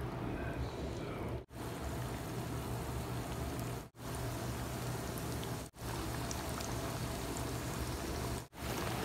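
Hot oil sizzling and bubbling steadily as cornstarch-coated potato sticks deep-fry in a pan, with more sticks being dropped in. The sizzle cuts out for a split second four times.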